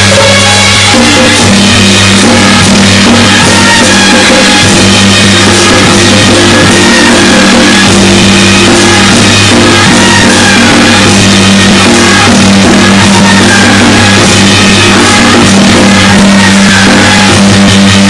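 Loud music with drums and a melody moving over a steady low drone.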